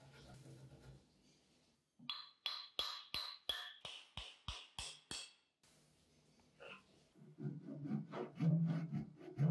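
A run of about ten sharp, evenly spaced knocks with a short ringing tail, about three a second. Near the end a hand saw starts cutting through a wooden hammer handle held in a vise, in steady back-and-forth strokes.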